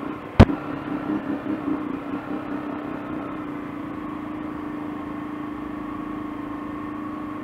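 Motorcycle engine idling in traffic with a regular throb of about four beats a second, then running evenly from about three seconds in as the bike creeps forward. A single sharp click about half a second in is the loudest sound.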